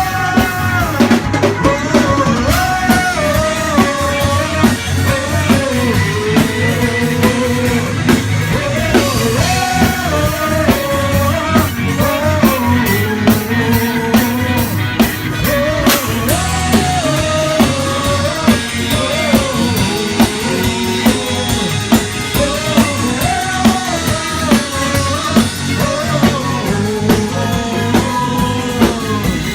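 Rock-style gospel band playing an instrumental passage: a drum kit keeps a steady beat under bass and guitars while a lead melody line slides up and down.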